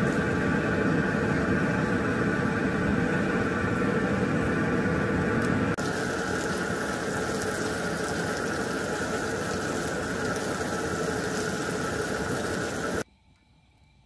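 Meat skewers sizzling on a griddle pan over a camping stove: a loud, steady hiss that eases slightly about six seconds in and cuts off about a second before the end.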